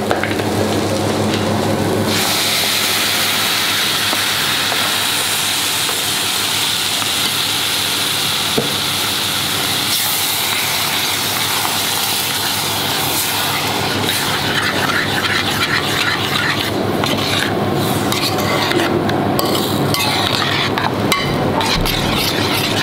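Coconut milk sizzling in a hot saucepan of fried lentils and spices, setting in suddenly about two seconds in as it hits the pan, with a spoon stirring through it. The sizzle eases in the second half, leaving the clinks and scrapes of the stirring spoon more prominent.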